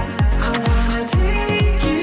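Background music with a steady beat: a deep electronic kick drum, falling in pitch on each hit, about twice a second, under held synth notes.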